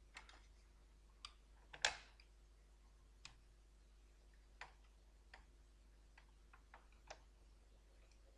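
About ten scattered light clicks and taps of plastic and metal parts being handled as a laptop-style CPU blower fan and heatsink are set back in place on a computer motherboard. The loudest click comes about two seconds in, over a faint steady low hum.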